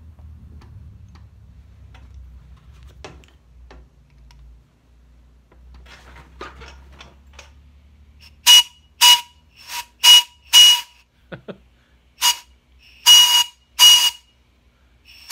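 A small copper-pipe steam whistle with bronze end cap and base, blown with compressed air at about 60 psi. After a low hum it gives about eight short, high-pitched toots in quick succession, starting about halfway through. Each toot carries a lot of air hiss from loose air escaping around the fitting.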